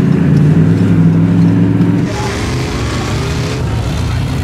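Steady engine drone heard from inside a pickup's cab. About two seconds in it gives way to a different engine running, a lifted mud truck on oversized tyres, a little quieter and with more hiss.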